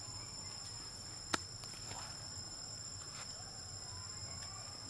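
Insects droning in two steady high tones, with one sharp click just over a second in.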